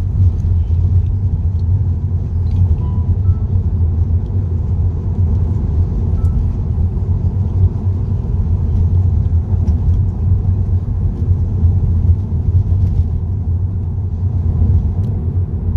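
Road and tyre noise inside a moving car's cabin: a steady low rumble.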